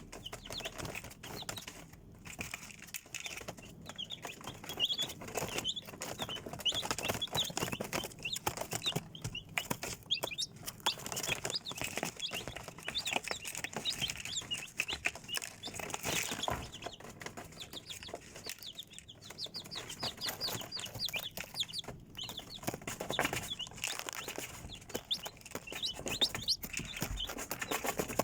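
A group of chicks peeping continuously, many short high-pitched calls overlapping, with frequent scratchy rustles and clicks.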